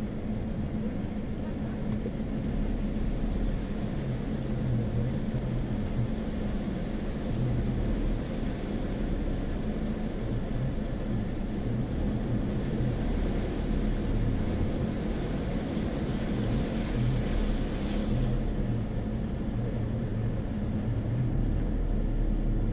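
Steady low hum of a car's engine and drivetrain heard from inside the cabin as the car drives through floodwater covering the road. There is a brief rise in hiss about three quarters of the way through.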